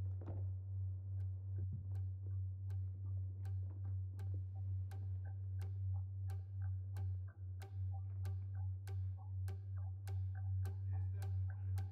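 Steady low hum under a regular clock-like ticking, about three ticks every two seconds, each tick with a faint ring; near the end extra ticks fall between the beats.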